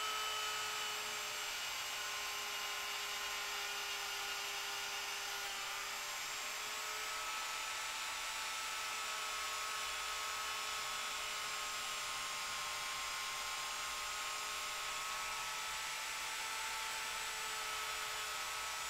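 Small Dremel-clone rotary tool running at its slowest setting, its buffing wheel polishing the steel trigger sears of an Air Arms CD trigger to a mirror finish. A steady whine that drifts slightly in pitch now and then.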